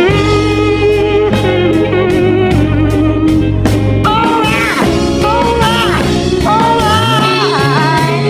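Background music: an instrumental break in a song, an electric guitar lead with bending held notes over bass and drums.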